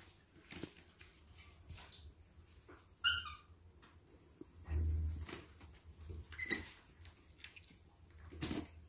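A baby monkey gives a short, high squeak about three seconds in and a fainter chirp later. Scattered knocks and scrapes, with a dull thump near the middle, come as it climbs on window bars and a concrete wall.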